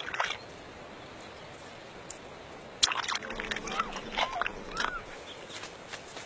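Cheetah cubs making a few short, bird-like chirps, mixed with soft clicks and rustling, starting about three seconds in after a quiet opening.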